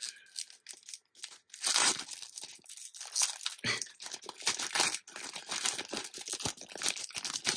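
A trading card pack's wrapper being torn open and crinkled by hand: irregular crackling rips, the loudest about two seconds in.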